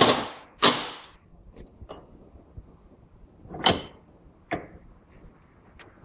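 Sharp metal clanks and scrapes of tools and parts being handled at a car's front hub and steering knuckle. Two loud ones come close together at the start and two more around the middle, with a few light ticks between them.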